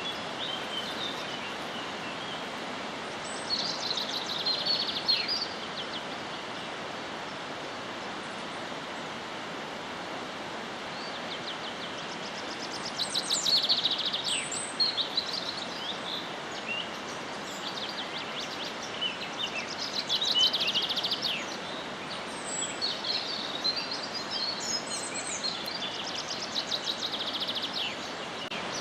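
Wild birds singing outdoors in several bursts of fast trills and chirps, over a steady background hiss.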